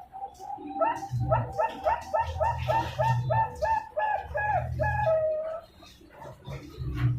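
Young zebra dove (perkutut), about two months old, cooing a quick run of about ten short, evenly spaced notes that ends in one longer drawn note.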